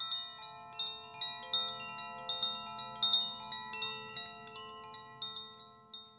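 Wind chimes ringing: bright strikes at irregular moments, each tone ringing on and overlapping the others over a faint low drone, dying away near the end.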